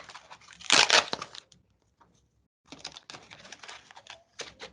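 Packaging being handled: crackling and rustling, loudest in a burst about a second in, then a brief pause and scattered smaller crackles.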